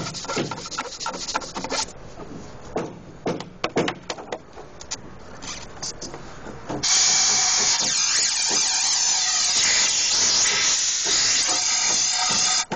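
Loud steady hiss of compressed air blowing, starting abruptly about seven seconds in and cutting off near the end, after a few seconds of scattered knocks and clicks.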